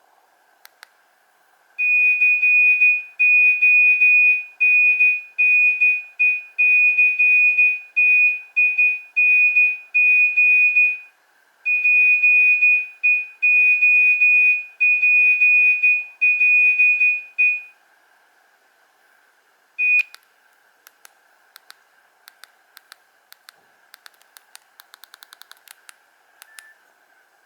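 Nokia 1800 phone speaker playing a monophonic ringtone: one high beep tone repeated in a choppy rhythm, played through twice with a short gap between. A single short beep follows, then a run of faint clicks near the end.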